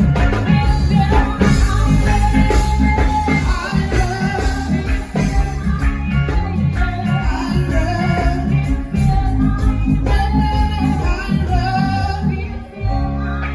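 Loud music with a heavy bass beat and a melody line over it.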